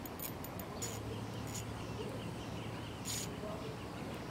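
Open-air ambience with faint bird calls and a steady background hiss, broken by several short sharp ticks, the loudest about three seconds in.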